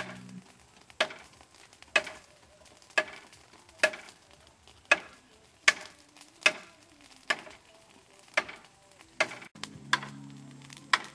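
A large knife chopping against bamboo: sharp wooden knocks, each with a short ring, about once a second at an uneven pace.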